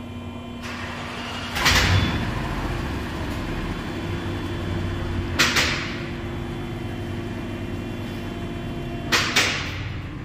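Motor oil poured from a plastic jug into a Caterpillar oil filter to pre-fill it, over a steady low shop hum. Sharp knocks come about two seconds in, again past the middle, and twice in quick succession near the end.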